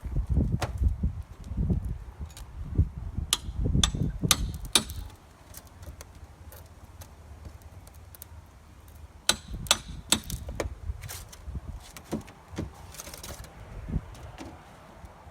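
Scattered sharp knocks and taps of carpentry work on a wooden porch roof, with heavy low thumping through the first five seconds and a cluster of knocks a little past the middle.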